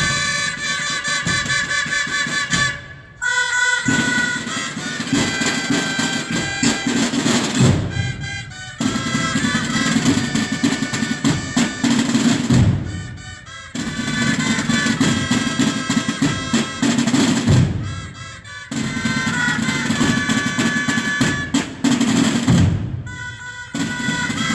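Holy Week brotherhood band of drums and brass playing a processional march: snare drum rolls and bass drum strokes under a sustained brass melody. It comes in phrases broken by short pauses about every five seconds.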